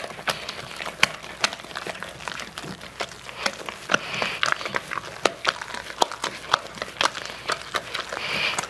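A spoon stirring a thick, creamy pudding mixture in a glass bowl: irregular clicks and knocks of the spoon against the glass, with soft scraping between them.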